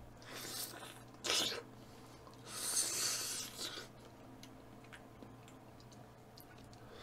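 Three short puffs of breath blown at a piece of ripe mango held in the hand, the longest about a second long near the middle. They are followed by faint wet clicks of chewing.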